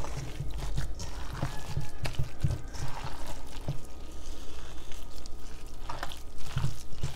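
Hands squeezing and kneading a wet, sloppy mixture of raw ground beef, rice and egg in a stainless steel bowl: irregular squelching and squishing with small knocks.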